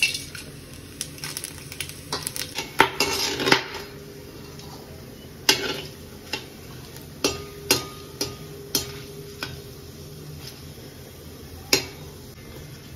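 Metal spatula stirring whole spices in hot oil in a hammered steel handi: irregular sharp clinks and scrapes against the pot, some ringing briefly, over a faint sizzle of the spices tempering in the oil.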